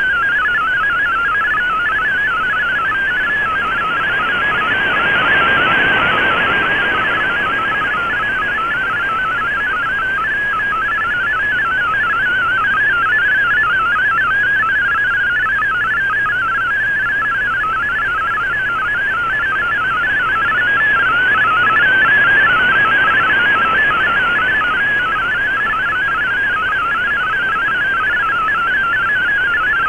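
MFSK32 digital text signal received over shortwave on an Icom IC-R8600: a fast, steady warbling of high-pitched tones over band hiss. The hiss swells and fades twice as the signal varies.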